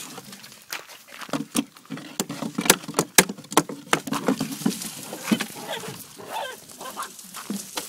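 Footsteps crunching on gravel and dry grass, many sharp clicks, over a low drawn-out animal sound in the first half and a few short higher-pitched animal cries in the middle.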